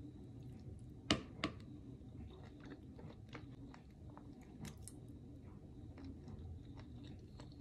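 A person chewing a mouthful of pork chop in green sauce close to the microphone: soft, wet mouth clicks throughout, with two sharper clicks about a second in.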